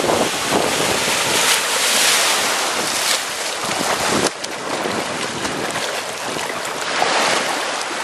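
Small waves breaking and shallow surf washing, with wind buffeting the microphone; the rush swells about a second and a half in and again near the end, with a few brief splashes.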